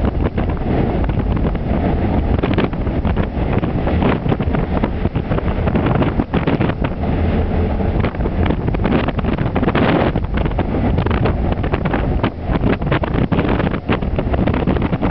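Strong storm wind buffeting the microphone in uneven gusts, over the rush of heavy seas breaking along a cargo ship's hull.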